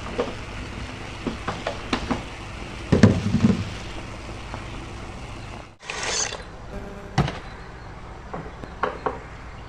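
Cooking clatter: scattered knocks and clinks of utensils and pots over a steady hiss, with a louder burst of clattering about three seconds in.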